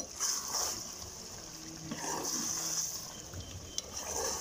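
Slotted steel spoon stirring chicken, tomatoes and chilli paste in a steel karahi over the heat, in sweeping strokes about every two seconds, with the food sizzling and the spoon scraping the pan.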